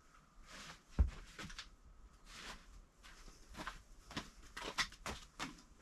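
A series of light, irregular knocks and clicks from things being handled, with one heavier thump about a second in.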